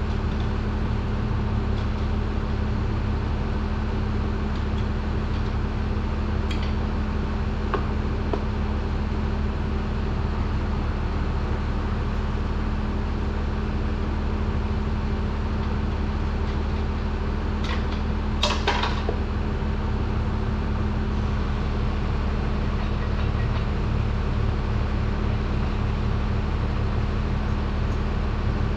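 Steady hum of running shop machinery with a constant low drone, over which a few light metallic clinks come from parts being handled inside an Eaton RTLO16913A truck transmission case, with a short rattle of clinks about two-thirds of the way through.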